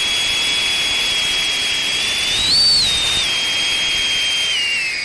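Beta 95X V3 cinewhoop drone with eight-blade propellers, its motors and props giving a steady high-pitched whine. About halfway through the pitch rises briefly and the sound gets louder with a throttle burst, then it steps back down and drops lower near the end.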